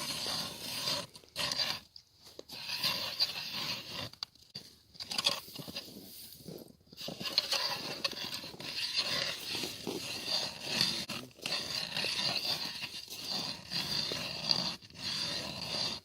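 Hand ice auger cutting into thick lake ice: a noisy rasping scrape that comes in uneven stretches, broken by short pauses.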